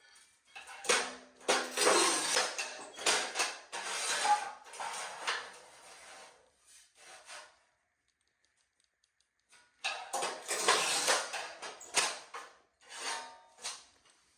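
Scraping and clinking of hard tiling tools and tile pieces being handled, in two spells with a near-silent pause of about three seconds between them.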